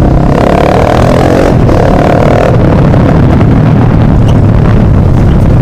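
Yamaha Fazer motorcycle with an open exhaust, running loud and steady while being ridden, with a higher note in the first couple of seconds.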